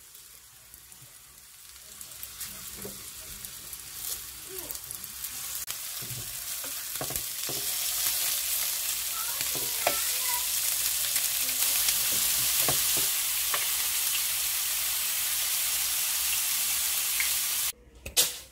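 Food sizzling in hot oil in frying pans, first rolled dumpling-wrapper churros, then sliced ham, the sizzle growing louder over the first several seconds, with light taps of chopsticks and a utensil against the pan. The sizzle cuts off abruptly near the end, followed by one sharp click.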